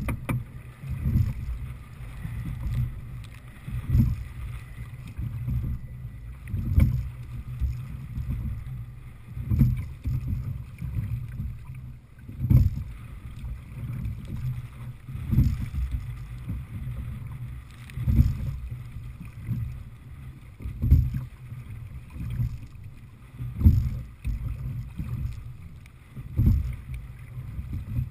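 A single sculler rowing a Little River Marine Heritage 18 open-water rowing boat. About every three seconds a stroke lands as a thump with water rushing past the hull, over a steady low wind rumble on the microphone.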